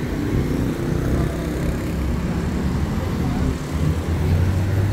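A motor vehicle's engine running, a low steady hum that settles onto one deeper tone near the end.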